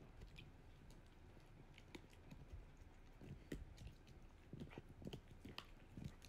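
A Shiba Inu gnawing a chew bone: faint, irregular clicks and crunches of teeth on the chew.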